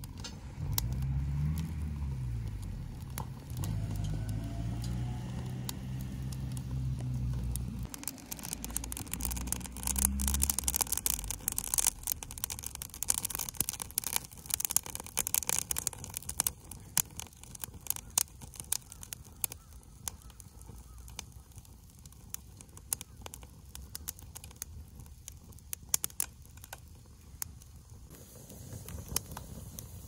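Bamboo fire in a metal fire pot crackling and popping: a dense run of sharp crackles about a quarter of the way in, then sparser single pops, a few of them loud. A low droning hum with shifting pitch runs under the first quarter.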